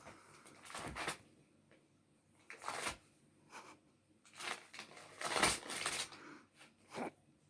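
An angry cat hissing in short, sharp bursts, about six times, the longest and loudest about five and a half seconds in.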